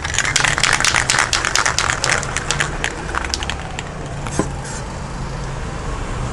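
Aerosol primer can being shaken, its mixing ball rattling in quick sharp clicks, about eight a second, for the first three and a half seconds before the clicking thins out. A low steady hum runs underneath.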